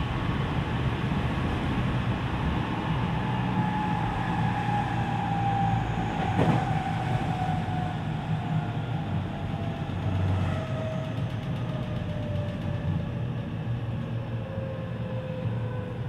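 JR West 207 series electric train heard from inside the car: the VVVF inverter and traction motor whine falls slowly in pitch as the train slows, over a steady rumble of wheels on rail. A single sharp click comes about six and a half seconds in.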